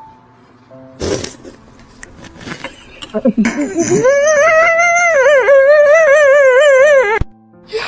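A loud, long crying wail with a wavering pitch, starting about three and a half seconds in and cutting off suddenly near the end. Before it come a few short sobbing sounds and a sharp noise about a second in.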